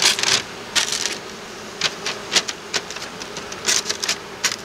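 Newspaper crackling in a series of short, irregular rustles as it is pressed and worked over the top of a beehive with a gloved hand and hive tool. Under it runs the faint, steady hum of honeybees.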